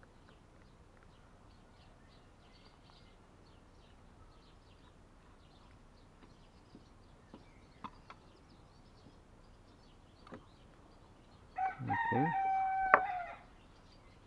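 A rooster crowing once, a held call of about two seconds near the end, after a few faint clicks.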